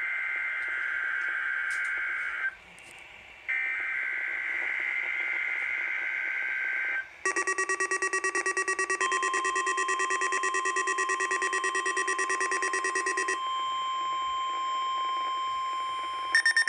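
Emergency Alert System SAME header: two bursts of buzzing two-tone digital data, about a second apart. Then weather alert radio receivers go off: a rapid pulsing electronic beep that a steady tone joins, and a second, louder pulsing beep starting near the end.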